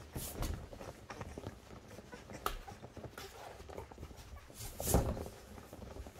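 Litter of three-week-old Drever puppies nursing from their mother, with irregular small clicks and rustles as they shuffle and push against each other on the blanket. A louder thump comes about five seconds in.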